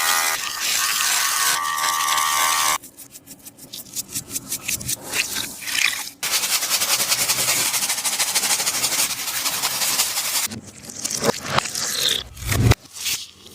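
Handmade taba squishy of tape and paper being squeezed and rubbed: crinkly friction noise, first a run of quick crackling ticks, then a long steady scraping rasp of about four seconds, ending in uneven rustles.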